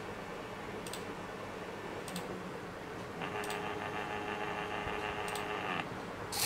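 Stepper motors of a small homemade GRBL pen plotter driving the pen carriage as it draws a square: a steady mechanical hum, with a higher whine of steady tones for a couple of seconds after about three seconds in, and a few faint ticks.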